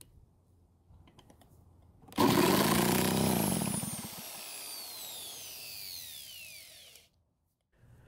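A drill spins the Redmax EBZ8500 backpack blower's two-stroke engine over through its starter hub, with fuel primed into the spark plug hole, and the engine does not fire. The drill's whine starts suddenly about two seconds in, falls in pitch and fades, and stops about a second before the end.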